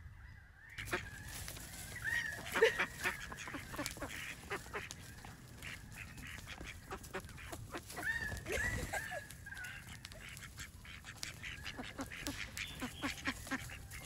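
White domestic ducks making short quacking calls while they feed, with many quick irregular clicks and taps as their bills peck at food on a wooden plank.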